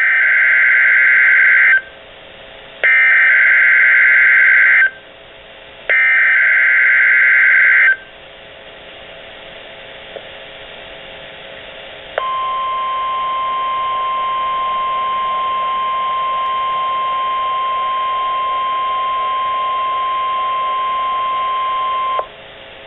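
NOAA Weather Radio alert tones through a Midland weather alert radio's speaker. First come three SAME digital header bursts, harsh warbling data tones about two seconds each, a second apart. A few seconds of hiss later, the steady warning alarm tone sounds for about ten seconds and cuts off suddenly. The coded header carries a Required Weekly Test, here used for a tornado drill, and triggers the radio's alert.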